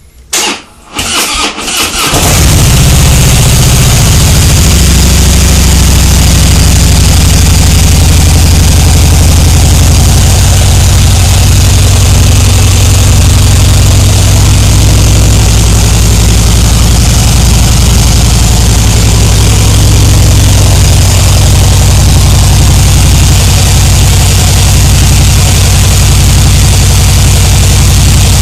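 Harley-Davidson Softail Blackline's 103 cubic-inch V-twin on its stock exhaust, cranked over by the starter in short bursts, catching about two seconds in and then idling steadily and loudly.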